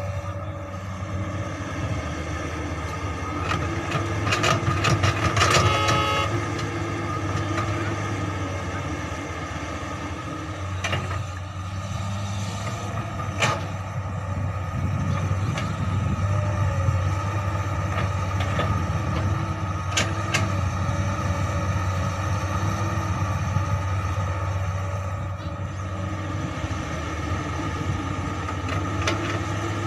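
Komatsu PC200 hydraulic excavator's diesel engine running steadily as it digs and loads earth, with occasional sharp knocks of the bucket. A brief horn-like tone sounds about five seconds in.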